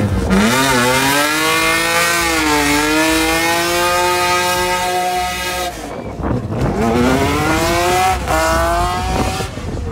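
Car engine revved hard and held high while the rear wheels spin in a burnout. The revs drop off suddenly just before the six-second mark, climb again, and cut off shortly before the end.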